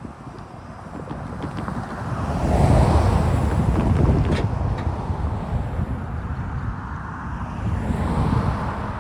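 Freight train of grain cars rolling past at a grade crossing: a low rumble that swells about three seconds in and again near the end, with wind buffeting the microphone.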